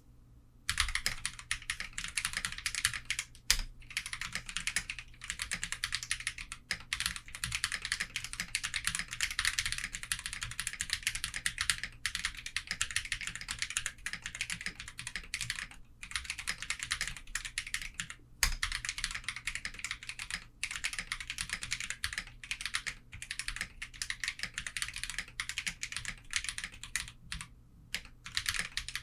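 Portico mechanical keyboard fitted with Holy Panda tactile switches, typed on fast and continuously: a dense stream of key clacks with brief pauses and a few louder strikes.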